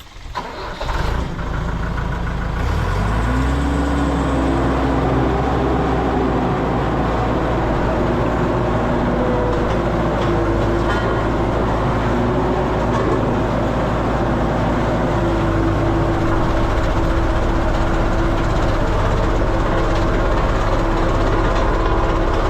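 Vibratory road roller's engine starting up and then running steadily, its revs rising about three seconds in and settling into an even note that strengthens again around fifteen seconds in.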